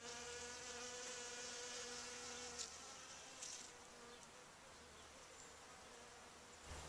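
A flying insect buzzing in a faint steady hum, loudest for the first two or three seconds and then weaker.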